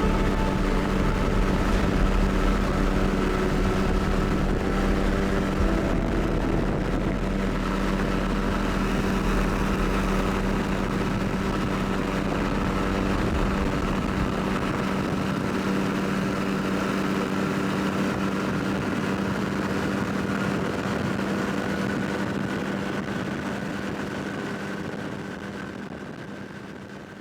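Microlight aircraft's engine and propeller running steadily in flight, a constant drone that fades out near the end.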